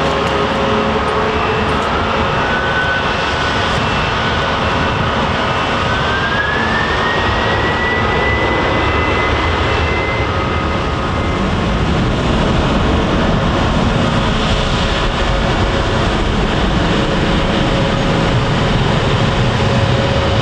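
A Boeing 767-300ER's twin turbofan jet engines running hard. A whine climbs in pitch over the first several seconds, and a low rumble grows louder in the second half, as the engines spool up for departure.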